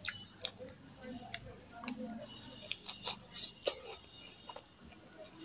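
Close-up eating sounds: wet chewing and lip smacks, with the squish of fingers mixing rice into curry gravy. A cluster of sharp smacks comes about three seconds in.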